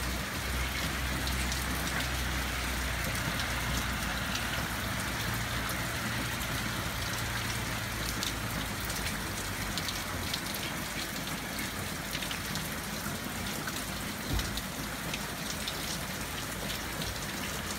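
Hard rain falling steadily, a dense hiss sprinkled with many sharp drop hits as water drips off a tiled roof edge onto a metal awning. A low rumble sits under it for roughly the first ten seconds.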